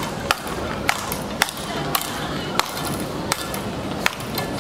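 Speedball rackets hitting the ball tethered to the pole in a fast back-and-forth rally: seven sharp whacks, about one every two-thirds of a second.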